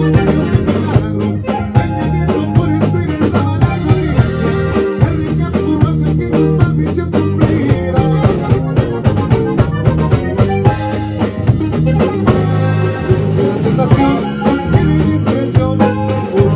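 Norteño band playing live: accordion over guitar, electric bass and a drum kit, with a steady beat.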